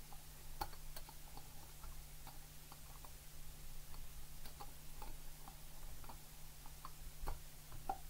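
Hard plastic model-kit parts clicking and tapping against each other as they are handled and fitted, a scattering of light, irregular clicks.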